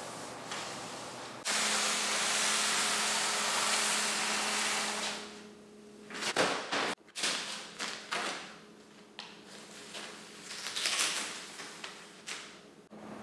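Plastic wrapping on a rolled rug rustling steadily as it is carried, then a thump about six seconds in, followed by scissors snipping and the plastic-and-mesh wrap crinkling in a series of short sharp sounds.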